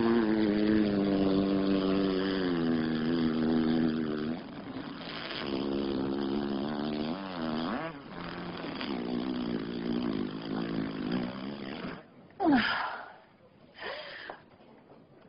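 A long, drawn-out fart with a wavering pitch, going on for about twelve seconds in three stretches, followed by two short sounds near the end.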